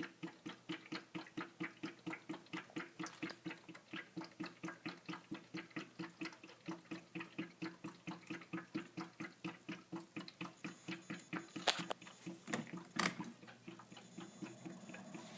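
Water tank of a Vicks cool mist humidifier glugging as it empties into the base, a quick regular bubbling of about four to five gulps a second that stops after about ten seconds. Two sharp clicks follow near the end.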